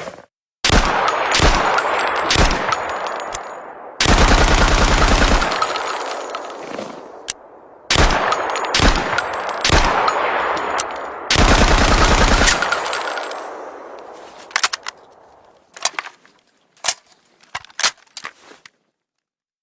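M2 carbine, a selective-fire .30 Carbine rifle, firing four single shots and then a short fully automatic burst about four seconds in, followed by four more single shots and a second automatic burst about eleven seconds in. Each volley echoes away. Light metallic clicks and clinks come near the end.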